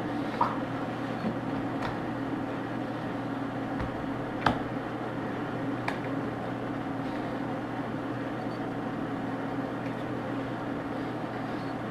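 Steady low electrical hum with background hiss, like a fan or appliance running in a small room, broken by a few faint short taps.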